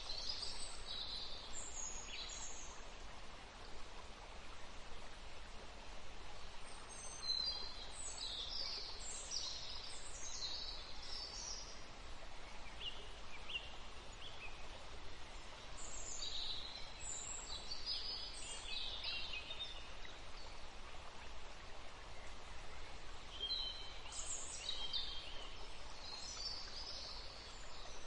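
Small birds chirping in clusters of quick high notes that come and go every few seconds, over a steady background hiss.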